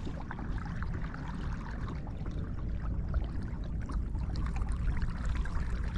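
Water lapping and trickling against a kayak hull, with many small faint ticks over a steady low rumble.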